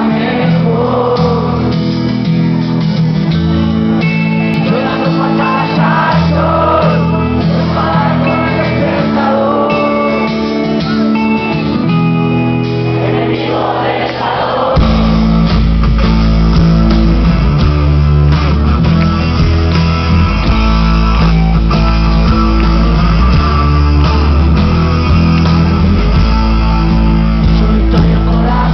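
Live rock band playing, with singing over guitar chords. About halfway through, the full band comes in with a heavy low end and the music gets louder.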